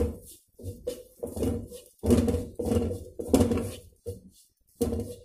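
Wooden spatula scraping and knocking against an aluminium kadai while stirring fried chapati pieces. The strokes are short and uneven, about two a second, with the pan ringing on each one.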